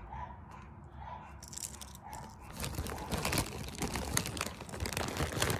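Plastic packaging crinkling and rustling as it is handled, faint at first and getting louder and busier about halfway through.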